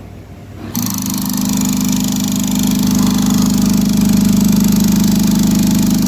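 Air-operated 10,000 psi hydraulic pump kicking in suddenly a little under a second in as its foot pedal is pressed, then running steadily with a fast, even pulsing hum and air hiss as it pressurises the hose crimper.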